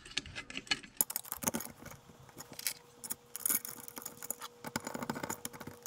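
Light, irregular metal clicks and rattles of a small alternator's back cover being handled and fitted over the rear housing and rectifier.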